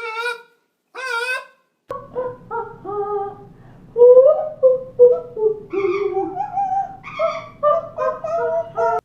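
A series of animal calls. First come a couple of short calls with a wavering pitch. After a cut about two seconds in, a long run of short calls follows, sliding up and down in pitch over a low background hum.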